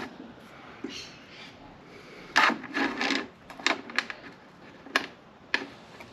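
Steel bracket clicking, knocking and scraping against the metal bed of a small wood lathe as it is slid and fitted into place by hand: an uneven run of sharp clanks, loudest in a cluster about two and a half to three seconds in, then single clicks.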